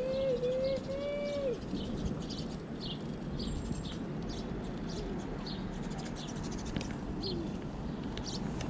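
Small birds chirping in short, scattered calls over a steady low rumble of wind and road noise. In the first second and a half there is a wavering, coo-like tone in three short phrases, the last falling away.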